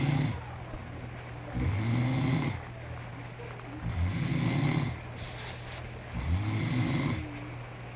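A man snoring in his sleep: a snore about a second long roughly every two seconds, three full snores, with quieter gaps between, over a steady low hum.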